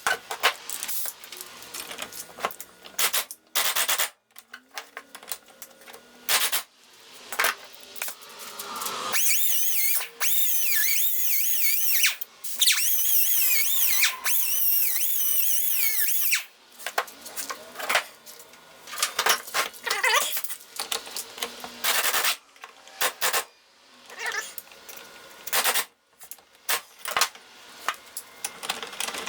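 Hand work on a cast-iron vise: repeated clicks, taps and scraping of metal tools. About nine seconds in, a steady whirring noise with a wavering pitch starts and runs for about seven seconds, then the irregular clicking resumes.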